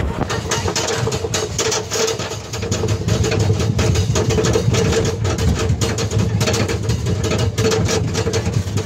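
Wooden roller coaster train being pulled up the lift hill by its chain: rapid clicking and clanking over a steady hum, growing louder about three seconds in.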